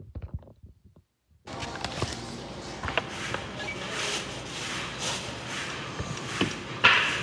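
Steady background noise of a shop interior with scattered light knocks, after a brief total dropout about a second in.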